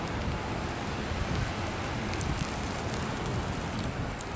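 Steady hiss and low rumble of wind and falling precipitation in a winter snowstorm, with a few faint high ticks.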